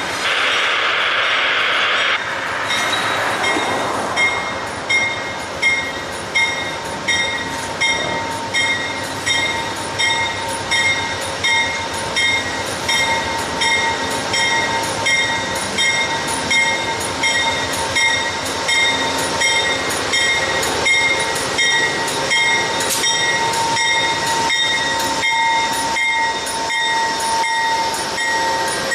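Locomotive bell ringing steadily at about one strike a second on a slow-moving passenger train, with a steady high tone underneath that grows louder near the end. A short burst of air hiss opens it.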